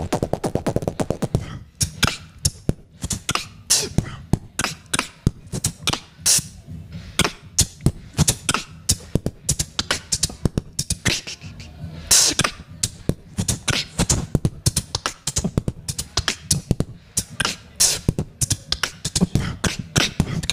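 Beatboxing into a handheld microphone: a fast, dense stream of vocal drum hits and clicks, with a few longer hissing sounds mixed in.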